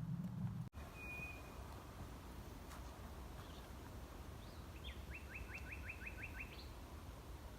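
Common nightingale singing: a single high whistled note, then a few seconds later a fast run of about eight sharp, evenly repeated notes. A low rumble cuts off abruptly under a second in.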